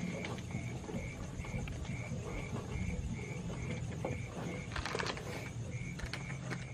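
A chirping insect repeating one short high chirp evenly, about twice a second, over a low steady hum and scattered clicks.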